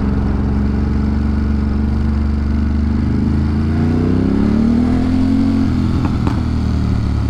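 Ducati Monster V-twin engine running at low revs as the motorcycle rolls slowly, the revs rising gently about halfway through and easing back off about two seconds later.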